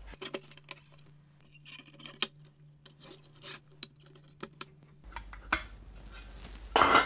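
Small metallic clicks, taps and scrapes as a soldering iron works the soldered tabs of a rusty steel RF shield and the shield is pried off a memory expansion board.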